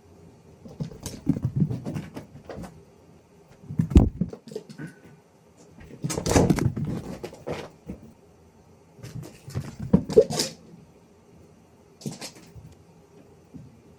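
A cat making excited vocal noises in about five short bursts, with pauses between them.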